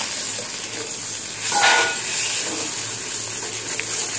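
Onion-and-sauce gravy sizzling in hot oil in an aluminium kadai while a metal spatula stirs it, the sauce just thinned with a little water and coming up to the boil.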